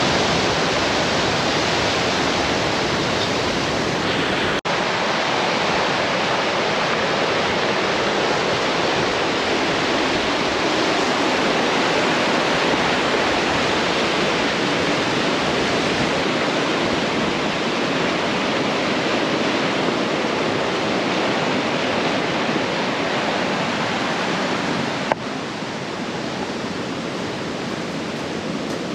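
Steady rush of a swollen river's white-water rapids, a continuous loud noise that becomes a little quieter near the end.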